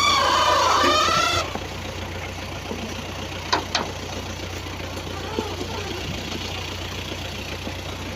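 Background music ends abruptly about a second in, leaving an engine running steadily at idle with a low hum. About three and a half seconds in, two short sharp sounds come a few tenths of a second apart.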